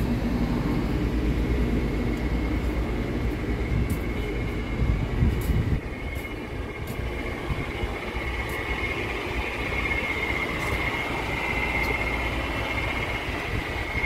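Steady low rumble of a Kia Granbird tour coach's engine idling, with the hiss of the air conditioning, heard from inside the passenger cabin. The rumble eases about six seconds in, and a faint steady high tone joins it in the second half.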